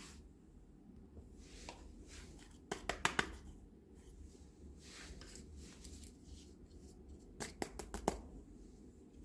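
Small toy kitchen pieces handled by hand: two quick clusters of light clicks and taps, one about three seconds in and another near eight seconds, with soft rustling between.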